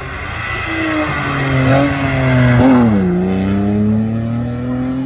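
A historic rally car, a white BMW E30, drives past at speed with its engine running hard. It gets louder as it approaches and is loudest about three seconds in, where the engine note drops sharply. It then rises steadily as the car accelerates away.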